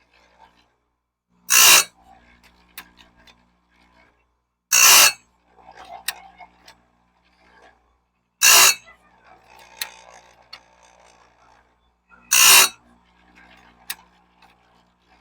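Electric chainsaw-chain sharpener's grinding wheel dropped onto bandsaw blade teeth one at a time: four short, harsh grinds about every four seconds, with faint clicks between them as the blade is indexed to the next tooth.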